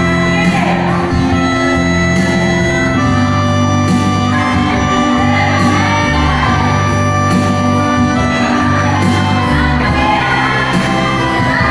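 A church worship band rehearsing a song: held keyboard chords over a moving bass line, with voices singing.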